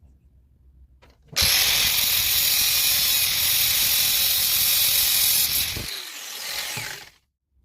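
A hand tool boring a hole into wood, with a dense, steady ratcheting rasp that starts abruptly, eases off near the end and stops.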